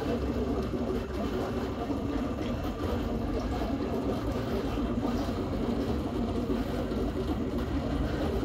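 Aquarium pump running: a steady low hum and rumble with no breaks.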